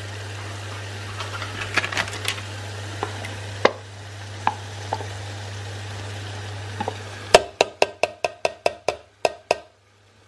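Yogurt spooned into an aluminium pot of masala-coated potatoes, with scattered clinks of a spoon against the pot over a steady low hum. About seven seconds in, a run of about eleven quick ringing metal taps, about five a second, as the spoon is knocked against the pot.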